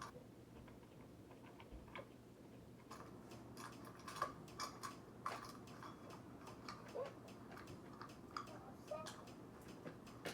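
Faint, irregular clicks and small knocks of a cordless angle grinder and its wheel guard being handled and twisted while someone tries to work the guard loose.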